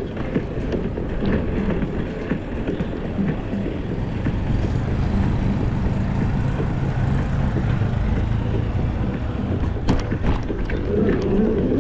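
Steady low rumble of wind and road noise from a moving bicycle ride, with a few sharp clicks about ten seconds in.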